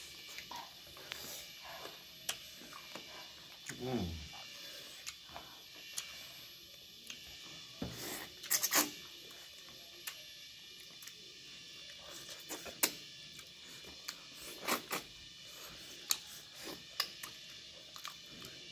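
Close-up eating sounds of two people eating rice and fish with their hands: scattered wet mouth clicks and smacks from chewing, with a short falling hum about four seconds in.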